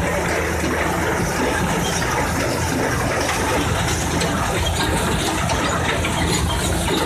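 Tractor engine running steadily under load in second gear, heard from inside the cab, while it pulls a square baler that is picking up hay, the baler's working noise mixed in.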